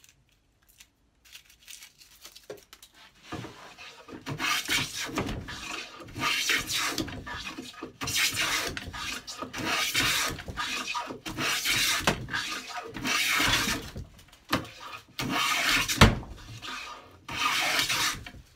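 Record No. 5 cast-iron bench plane planing along the edge of a board in a vise: a run of rasping strokes, about one every second and a half, each peeling off a shaving, with the blade set for a thinner cut. There is one sharp knock near the end.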